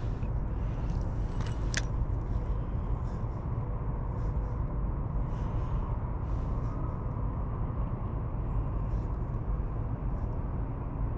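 Steady low rumble of wind on the microphone, with one sharp click about two seconds in.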